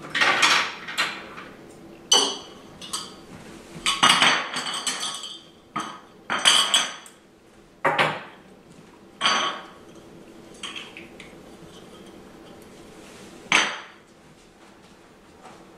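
Small hard objects clinking and knocking as they are handled and set down one by one on a tile floor: a run of sharp, briefly ringing clinks over the first nine seconds, then one more near the end.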